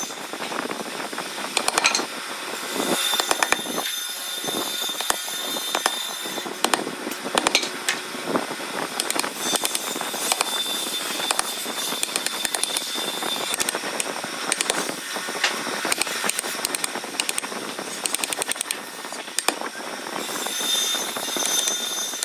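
Steel wood chisel tapped with a wooden mallet and pushed by hand into the rim of a wooden wheel: irregular sharp knocks and taps, with the scrape of the blade cutting wood between them.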